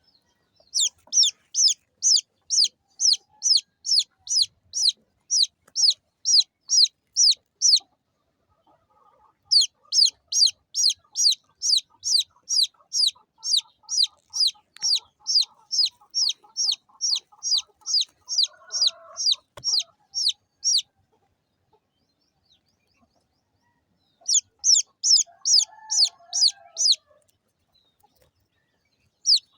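Baby chick peeping loudly and repeatedly: high, downward-sliding peeps at about three a second, in three long bouts with short pauses between. A softer, lower chattering call sounds beneath the peeps in the middle and again near the end.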